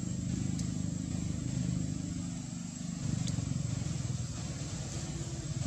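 A motor engine running steadily at low revs, a low hum with a faint high steady whine above it.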